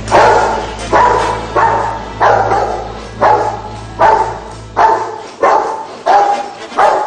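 A large guard dog barking hard and repeatedly, about ten loud barks at a steady pace of roughly one every 0.7 seconds, each one echoing briefly.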